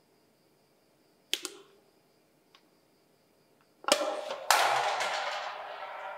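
Metal drink can thrown down: a couple of sharp clicks about a second in, then about four seconds in the can strikes hard twice and clatters and rattles across the ground for about two seconds, fading out.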